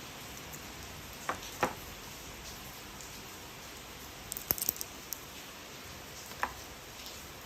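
Plastic toy train parts being handled and fitted together: a few scattered clicks and taps, with a small cluster of sharper clicks near the middle, over a steady faint hiss.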